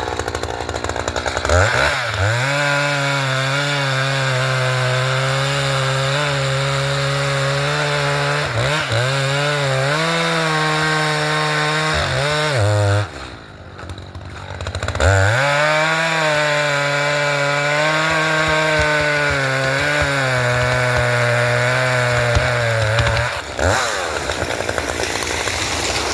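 Two-stroke chainsaw revved up and held at high throttle while cutting wood, its pitch dipping briefly under load. It drops back to idle twice: once for about two seconds in the middle, and again near the end with a few short throttle blips.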